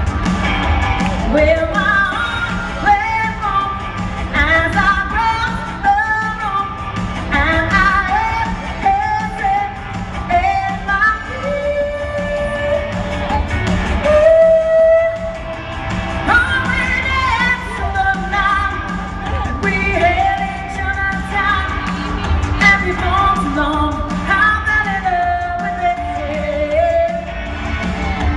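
Live freestyle dance-pop song over a large hall's sound system: a lead singer's melody of held, sliding notes over a backing track with a steady beat.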